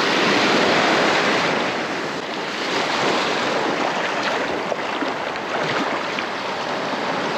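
Surf breaking and washing up the beach, louder in the first couple of seconds, with wind buffeting the microphone.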